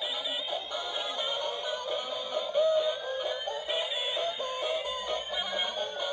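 Electronic singing baby toy playing a tune with a synthesized voice through its small speaker, thin with no bass, with a couple of long sliding tones near the middle.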